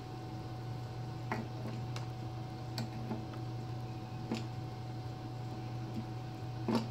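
A few faint, irregular clicks and taps from multimeter test probes being handled and set against a light-fixture adapter, the sharpest near the end, over a steady low electrical hum.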